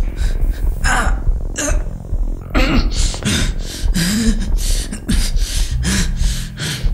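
A man breathing hard and panting in quick, loud breaths, about three a second from a few seconds in, with a few short grunts, over a steady low drone.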